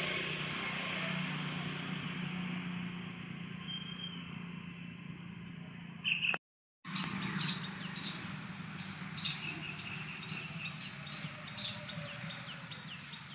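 Outdoor ambience of insects and birds: a steady high insect drone with short chirps repeating at an even pace. The sound cuts out briefly about six and a half seconds in, then returns with louder, busier bird chirps.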